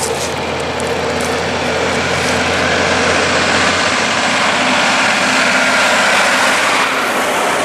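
Heavy-haulage prime mover pulling a loaded low loader, its diesel engine and tyres growing steadily louder as it approaches.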